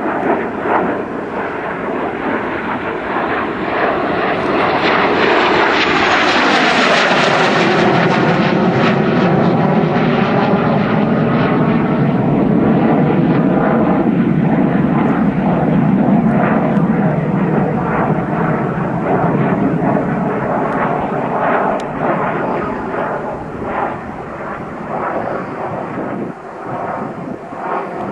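F-86 Sabre jet fighter's turbojet passing overhead in a flypast. The jet noise swells to its loudest through the middle and then slowly eases off, with a sweeping, phasing tone as the aircraft goes by.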